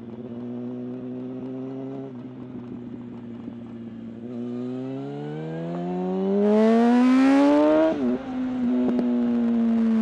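Yamaha R1's inline-four engine heard from the saddle: running steadily at part throttle, then from about four seconds in revving up hard with a steadily rising pitch and a rush of noise at the top. About eight seconds in the sound dips sharply as the bike shifts up, and the engine carries on at lower revs with its pitch slowly falling.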